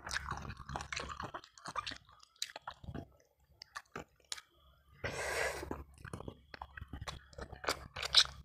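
Close-miked mouth sounds of a person chewing tender ayam ingkung chicken: scattered wet smacks and clicks, quieter for a few seconds in the middle. A half-second breathy rush comes about five seconds in.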